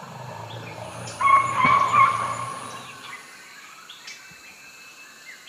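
Outdoor animal calls: a short cluster of high chirping calls about a second in, over a low steady rumble that fades out about three seconds in.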